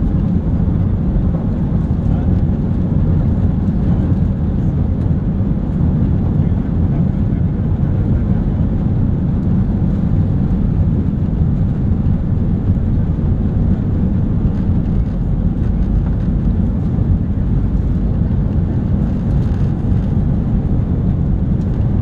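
Cabin noise of an Airbus A320 taxiing: a steady low rumble from its jet engines running at low power.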